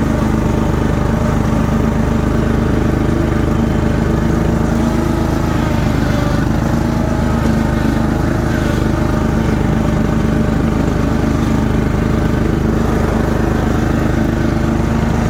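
The Ariens Mini Zoom 1434 zero-turn mower's 14.5-horsepower Briggs & Stratton engine runs at a steady speed with the cutting deck engaged. It holds one even pitch and the deck runs smoothly without vibrating.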